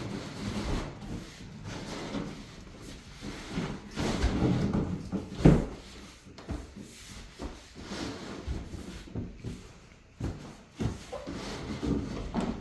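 Irregular knocks, bumps and scraping as a wooden wardrobe frame is handled and shifted into place, with one louder thump about five and a half seconds in.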